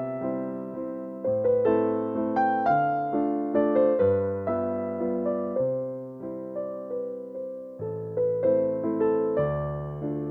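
Background keyboard music: piano-like notes and chords struck in a steady rhythm, each one fading away.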